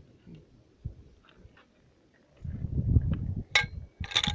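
Metal parts of a 14.5 mm anti-aircraft machine gun clicking and clanking as they are handled and fitted. The strikes come near the end, the last ones ringing briefly, after a low rumble.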